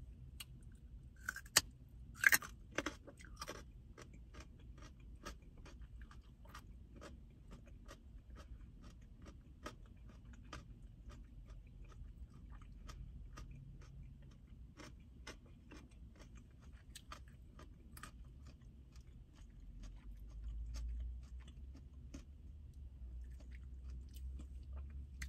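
Close-up crunchy chewing of raw carrot sticks dipped in ranch dressing: a steady run of small crunches, with a few louder bites about two seconds in. A low rumble swells briefly near the end.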